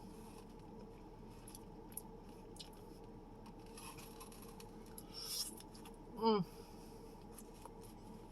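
Quiet eating sounds from a person eating takeout food: a few faint clicks and a soft rustle or crunch about five seconds in, then a short falling "mm" just after six seconds.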